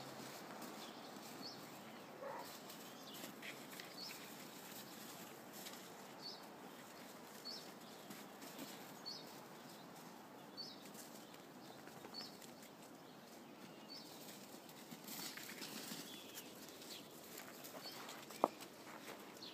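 Puppies scuffling and padding through deep snow, heard faintly outdoors, with a small high chirp repeating every second or two. A louder stretch of crunching comes near the end, then a single sharp click.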